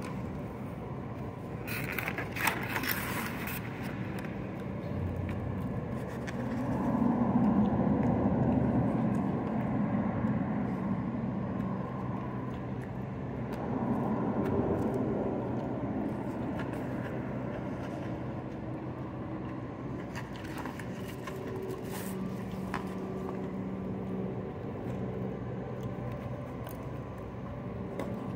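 A steady low motor hum, swelling in loudness twice, with brief plastic scraping about two seconds in.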